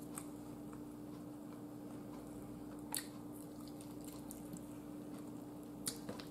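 Faint chewing and wet mouth sounds of a person eating, with a couple of brief clicks, about three seconds in and near the end, over a steady low hum.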